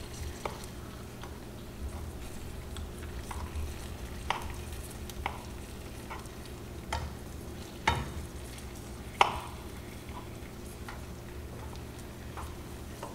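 Sugar syrup bubbling and sizzling in a skillet as a skewer of fruit is turned through it to coat it for tanghulu, with scattered light clicks of the skewer against the pan, the sharpest two about eight and nine seconds in.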